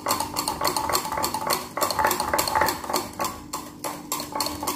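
Stainless-steel wire whisk beating a thick creamy mixture in a glass bowl, its wires clinking against the glass in quick strokes, about five a second.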